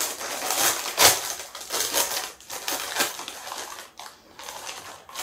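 Crinkly potato-chip bag being torn open and handled, a dense rustle of plastic with a sharp pop about a second in; the crinkling dies down near the end.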